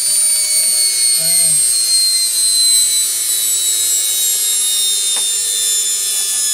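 Universal-type washing machine motor running fast through a triac speed controller, drawing about 5.5 amps: a steady high-pitched whine that drifts slowly lower in pitch.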